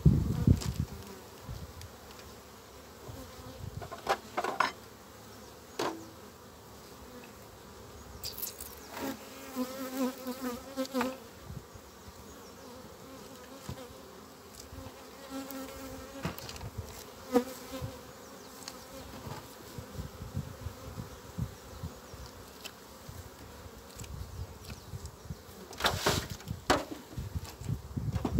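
Honeybees buzzing around an open hive, with a bee flying close past now and then in a louder pitched drone. A few sharp knocks come from the hive being handled, two of them near the end as the lid goes back on.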